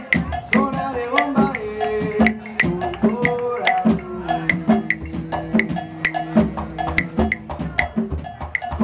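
Live Puerto Rican bomba music: barrel drums under a steady pattern of sharp wooden clicks, about three a second, typical of the cuá sticks, with voices singing long held notes that step in pitch.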